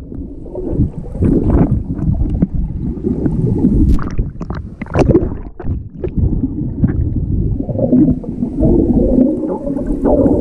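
Muffled, irregular gurgling and sloshing of water picked up by a camera held underwater, with scattered small clicks and knocks.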